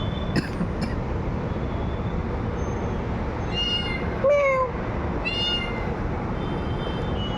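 A cat meowing: one loud, short meow that falls in pitch about four seconds in, with fainter, higher-pitched calls just before and after it.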